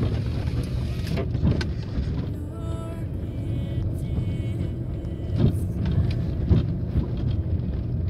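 Car driving on an unpaved dirt road, heard from inside the cabin: a steady engine and tyre rumble, with two louder thumps in the second half.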